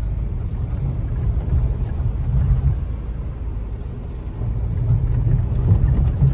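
Car engine and running gear heard from inside the cabin while fording a shallow river: a steady low rumble.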